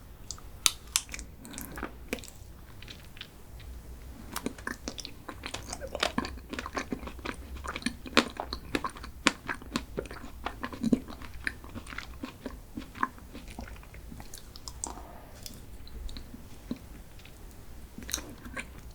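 Close-miked chewing of a chocolate dessert, with many crisp crunches and wet mouth clicks, busiest in the middle of the stretch.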